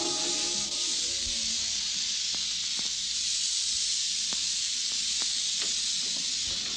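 Steady hiss of an old 1937 radio broadcast recording, with a few faint scattered clicks; the end of a music bridge fades out in the first second.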